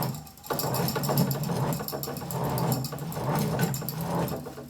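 Yarn winder turning as black bouclé yarn is unravelled from a knitted piece and wound up. It makes a steady mechanical whirring that swells and dips, starting about half a second in and fading near the end.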